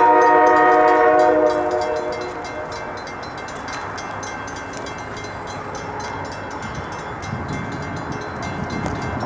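Multi-note air horn of an approaching CSX freight train led by GE C40-8 locomotive 7593: one long chord that cuts off about a second and a half in. After it comes a steady, quieter rail noise, with a low rumble growing near the end.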